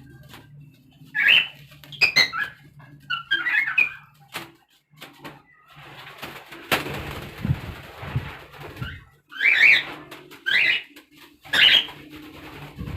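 Cockatiel giving short, sharp chirping calls in small clusters, with a few seconds of rustling noise about halfway through.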